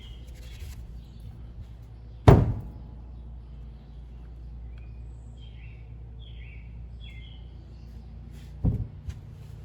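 A sharp knock of metal parts set down on a workbench about two seconds in, and a smaller knock near the end, as a mini lathe's 3-jaw chuck and its accessories are handled.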